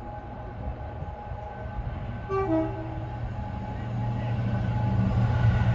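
A diesel train's horn sounds a short two-tone, high then low, about two seconds in. Under it the low engine rumble of the approaching train grows steadily louder toward the end.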